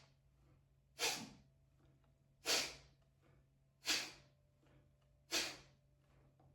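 Forceful nasal exhalations of qigong fire breathing: sharp puffs of air blown out through the nose, about one every second and a half, four in a row, each pumped out by the hands pressing on the belly to clear the sinuses.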